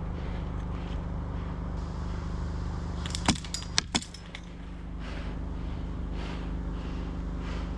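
A steady low hum, with a quick run of four or five sharp clicks about three seconds in.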